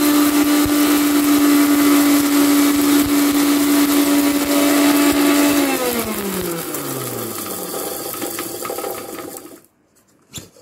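Mixer-grinder (mixie) motor running at full speed, dry-grinding dried red chillies, ginger, fennel seeds and rock salt to a powder. About six seconds in it is switched off and the motor winds down with a falling hum, and a single click follows near the end.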